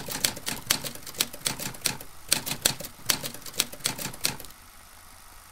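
Typewriter keys clacking in an uneven run of sharp strikes, about five a second, stopping a little over four seconds in. It is a typing sound effect laid under a title that types itself out letter by letter.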